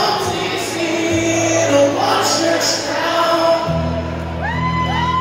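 Acoustic guitar played live with a man singing at the microphone, in a large hall. Fuller low guitar notes come in near the end.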